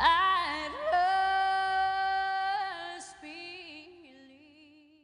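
The end of a slow song: a singing voice holds a long note, then sings a softer wavering last note that fades away to nothing.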